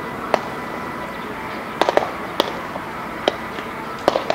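Sharp pops of baseballs landing in leather gloves during a game of catch. There are several, singly and in quick pairs, over a steady background hiss.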